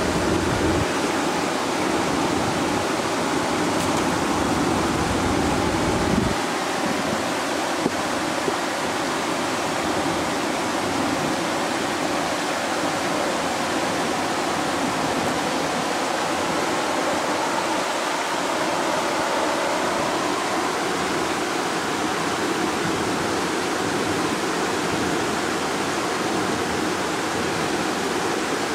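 Steady rushing of river water pouring over a weir, an even unbroken roar. A low rumble underneath it stops about six seconds in.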